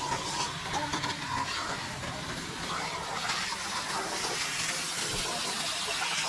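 Pressure-washer water jet hissing steadily as it sprays onto a soapy car floor carpet.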